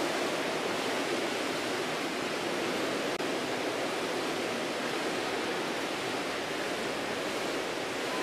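Steady wash of noise of an indoor swimming pool hall: water sloshing and splashing against the lane ropes and wall, echoing off the hall's hard surfaces, with a momentary dropout about three seconds in.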